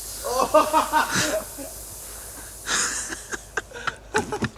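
A person's voice for about a second near the start, then a short rush of noise and a few sharp clicks near the end.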